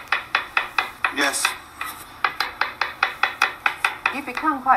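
Knife chopping quickly on a cutting board, even strokes about five a second.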